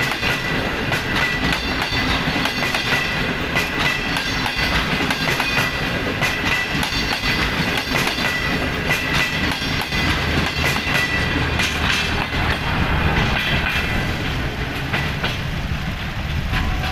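Green Line Express passenger coaches rolling past close by: a steady rumble of steel wheels on rail, with repeated clicks as the wheels cross rail joints.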